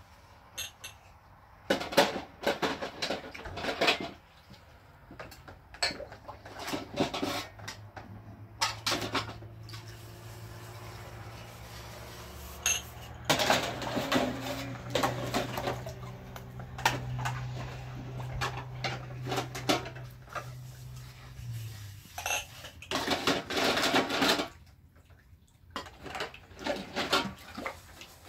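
Metal pots, dishes and cutlery clattering and scraping in repeated short bursts, with a low steady hum underneath through the middle that cuts off suddenly.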